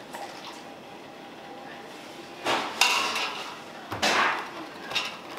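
Kitchenware clattering: a few sharp knocks and scrapes, like a metal utensil against a pot, in the second half.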